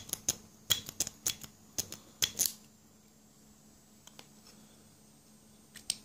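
Lock pick raking the pins of a six-pin master-pinned lock cylinder: a quick run of sharp metallic clicks over the first two or so seconds, then two faint clicks near the end.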